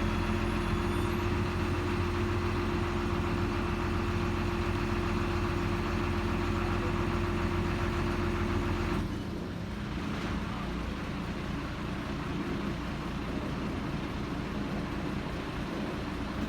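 An engine running at a steady speed. About nine seconds in, its steady tone drops away and a quieter, noisier running sound carries on.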